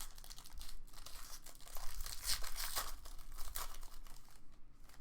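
Plastic wrapping crinkling and tearing in irregular crackles as an encased trading card is unwrapped by hand.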